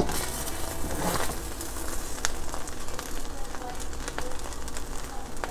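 A slotted spatula stirring and fluffing cooked rice in a stainless steel pot, a soft rustling broken by a few light clicks of the spatula against the pot.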